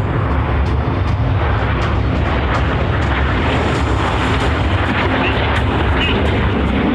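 Steady jet noise from Aermacchi MB-339 trainer jets flying in the display, a dense rushing sound heaviest in the low end.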